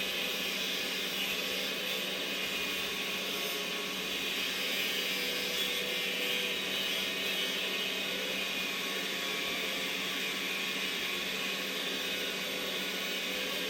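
Steady, unbroken whirring of a motor running at constant speed.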